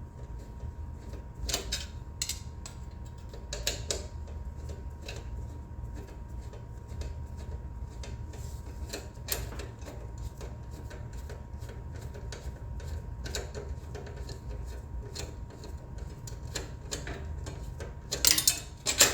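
Hand screwdriver working screws out of a motorcycle's headlight trim, making scattered short clicks and ticks at an uneven pace, with a louder cluster near the end. A steady low hum runs underneath.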